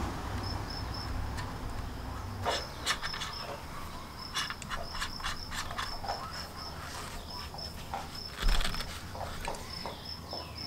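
Hands handling the WeBoost antenna mast and its cable fittings, giving scattered light clicks and taps and one louder knock about eight and a half seconds in. A high-pitched chirp repeats in short bursts in the background.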